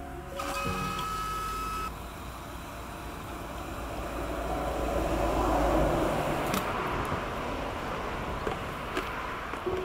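Motor vehicle noise: a broad rush with a low rumble that swells to its loudest about halfway through, then eases off. A few seconds of music with held tones play at the start.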